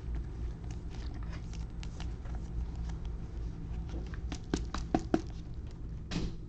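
Sports trading cards being handled: soft clicks and paper-and-plastic rustles as cards are flipped and sorted, with a quick run of sharper clicks about five seconds in and a short rustle near the end.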